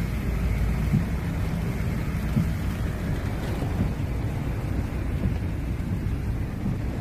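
Torrential rain drumming on a car's roof and windshield, heard from inside the cabin as a steady low rumble.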